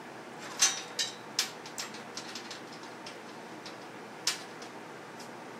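Sharp metallic clicks and clanks of steel parts and locking clamp pliers being handled on a steel welding table: a quick run of them in the first two seconds or so, then one more about four seconds in.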